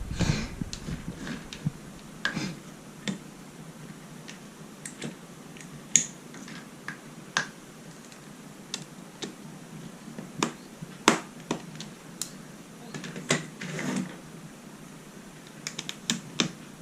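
Irregular sharp clicks and taps of a small screwdriver working at stiff laptop battery screws, metal knocking on metal and plastic. The screws are stuck and will not come loose.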